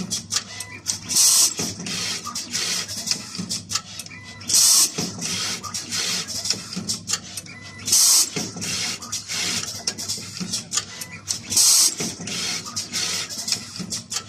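Automated wire cutting, stripping and soldering machine working through its cycle: steady machine hum with rapid clicking and clatter, and a short loud hiss about every three and a half seconds.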